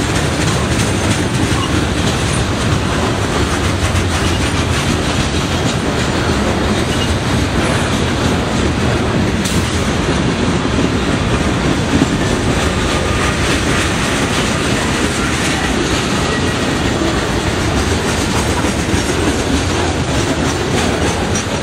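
Freight cars of a mixed freight train rolling past over a road crossing: a steady rumble and clatter of steel wheels on the rails, with one sharp clack about twelve seconds in.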